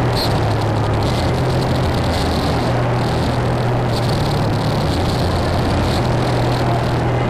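Power-electronics noise music: a dense wall of hiss over a steady low droning hum, with a brighter hiss swelling about once a second.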